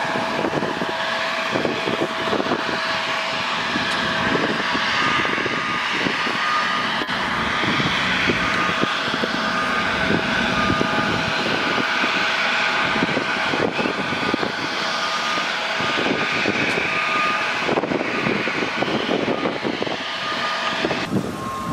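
Bombardier CRJ regional jet's engines running at idle: a steady jet noise with a constant whine through it. A reversing beeper sounds in short regular beeps from about five seconds in.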